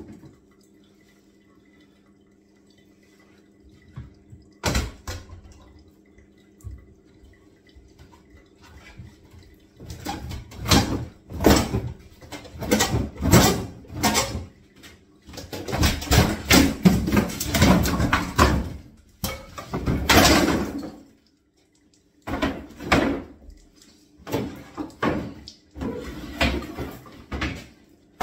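Kitchen fittings being pulled apart by hand: a single sharp knock about five seconds in, then from about ten seconds in a long run of loud knocking, scraping and clattering in uneven bursts with short pauses.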